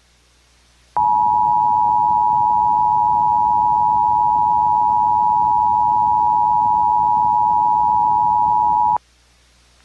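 Emergency Alert System two-tone attention signal: two steady pitched tones sounding together, starting abruptly about a second in, holding for about eight seconds, then cutting off sharply.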